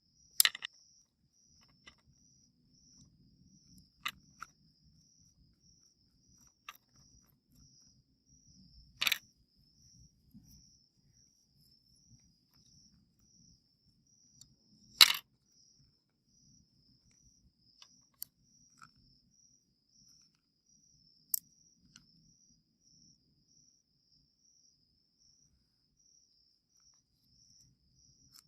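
Crickets chirping steadily and faintly, broken by a handful of sharp clicks and knocks, the loudest about halfway through.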